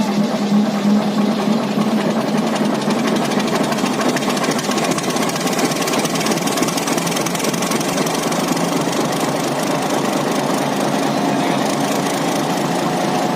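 Diesel locomotive engine running steadily with a rapid knocking beat just after start-up. A steady hum under it fades away about two seconds in.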